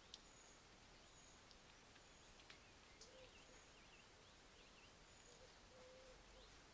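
Near silence: a faint steady hiss with distant birds calling, short thin high notes about once a second and a few quick chirps, and two brief clicks.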